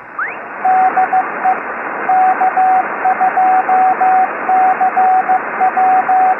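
Morse code tone keyed over a steady hiss of shortwave radio static, spelling out 'DE K2CJB', an amateur radio station's call sign, with a brief rising whistle at the start.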